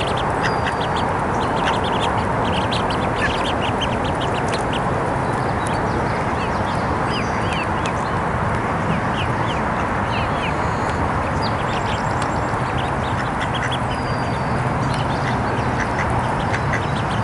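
Mallard ducklings peeping, many short high chirps coming in quick runs over a steady background rush.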